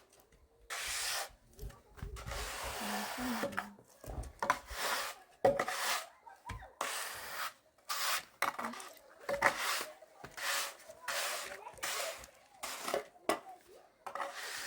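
Hand tool scraping over stone and mortar in repeated strokes, each about half a second to a second long with short gaps between, irregular in pace, during bathroom stone repair work.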